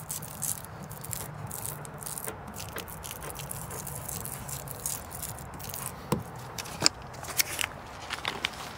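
A hand rubbing a small adhesive label flat against a trailer's side panel, a fluctuating scratchy rubbing. From about six seconds in, a few sharp clicks and crunches, like steps on gravel.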